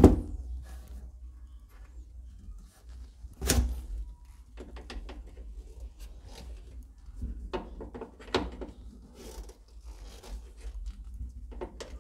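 Pliers gripping and turning the threaded cap on a wall water-supply pipe to open it: a sharp knock right at the start and another about three and a half seconds in, with smaller clicks and scrapes of metal jaws on the fitting between them.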